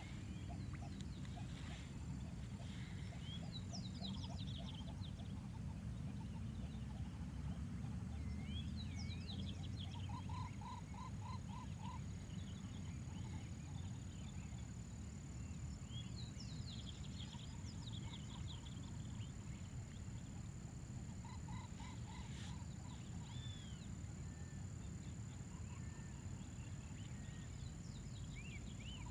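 Outdoor wildlife ambience: scattered bird chirps and, a few times, short trains of rapid even pulses from a calling animal. Underneath are a steady low rumble and a thin, steady high-pitched whine.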